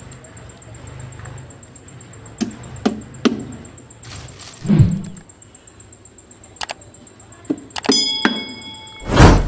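Hammer blows driving small nails into a 6 mm MDF board: a run of irregular knocks and thunks, one with a brief metallic ring about eight seconds in, and the loudest, heaviest blow near the end.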